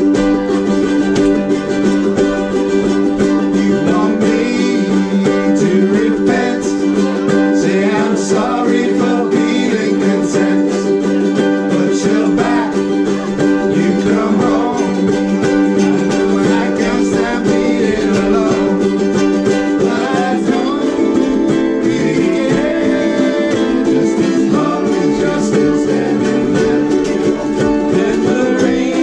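Dozens of ukuleles strummed together in a steady rhythm, with the group singing along.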